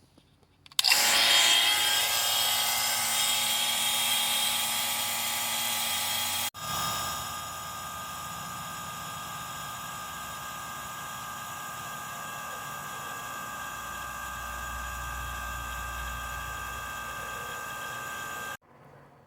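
HVAC vacuum pump running, evacuating the refrigerant lines of the converted heat pump before charging. It starts about a second in with a loud, steady motor whine, drops to a quieter steady run after about six seconds, and cuts off suddenly near the end.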